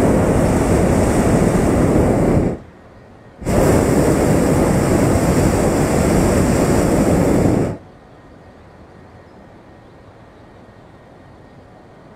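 Hot-air balloon's propane burner firing in two blasts: a first of about two and a half seconds, then after a brief pause a longer one of about four seconds, heating the air in the envelope.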